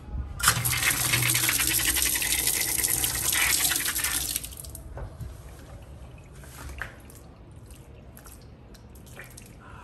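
Water running in a steady stream for about four seconds, then stopping, as water is put on a potted rue plant. A few faint small knocks follow.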